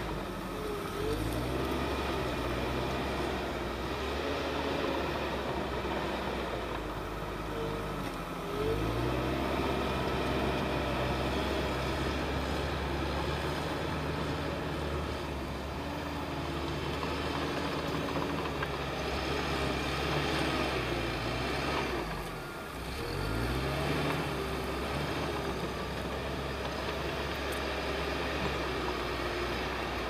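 A large Caterpillar crawler bulldozer's diesel engine running steadily under load as the machine pushes through dirt. Three times the engine sags briefly and then rises back up in pitch: about a second in, about eight seconds in, and about 23 seconds in.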